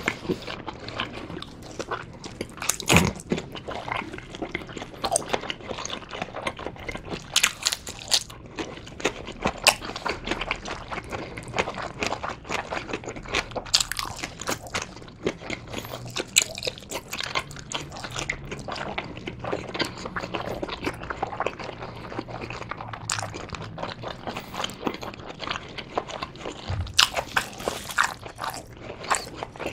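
Close-miked chewing and biting of Korean blood sausage (sundae), a steady run of short sharp mouth clicks. Near the end the sausage is pulled apart by gloved hands.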